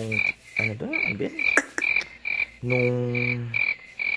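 Frogs calling, a short high note repeated about twice a second, steady throughout. A man's voice makes drawn-out wordless sounds in between.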